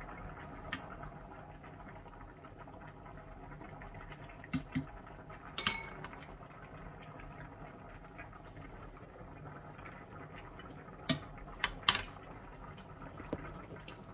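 Pot of pork stew simmering with a steady low bubbling, and a metal ladle clinking against the pot as broth is scooped out to taste: a few clinks about five seconds in and a quick cluster near the end.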